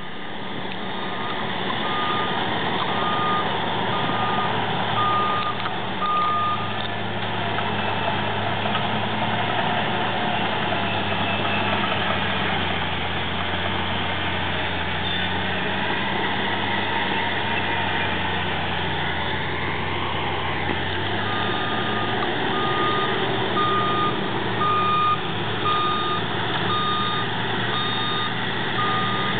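Bulldozer's diesel engine running steadily under load while digging, its pitch shifting a couple of times. Its reversing alarm beeps about once a second for a few seconds near the start, and again through the last third.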